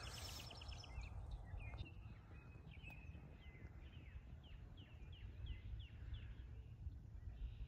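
A songbird singing faintly: a few chirps, then a run of about eight short, quickly falling whistled notes through the middle, over a low rumble.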